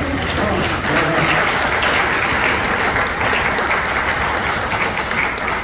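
An audience applauding: dense, steady clapping that thins out near the end.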